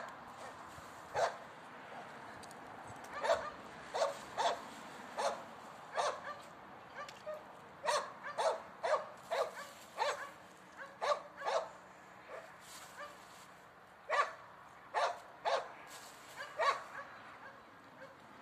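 An animal giving short, sharp bark-like calls, about two dozen at irregular intervals, some in quick pairs, with a pause of about two seconds after the middle.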